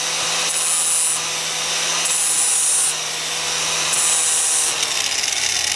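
Electric power tool running with a steady hum, worked against wood in three rasping passes, each under a second and about a second and a half apart.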